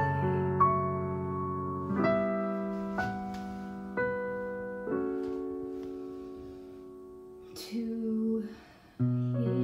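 Piano accompaniment playing slow, sustained chords, a new chord struck every second or so and left to fade. Near the end the playing thins out to almost nothing after a short breathy sound, then a fuller chord comes in.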